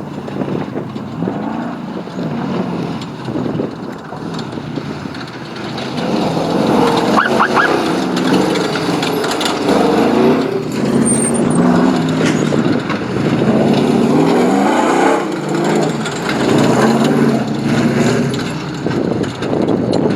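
Off-road race car engine revving, its pitch rising and falling over and over, louder from about six seconds in.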